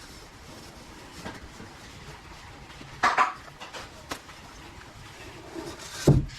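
Hard objects clattering and knocking in two short bursts about three seconds apart, over a steady background hiss.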